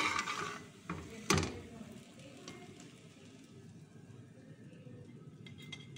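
A steel spoon scraping and knocking against a metal pot as dry cooked vermicelli is scooped out: three sharp clinks in the first second and a half, then only a faint steady background hiss.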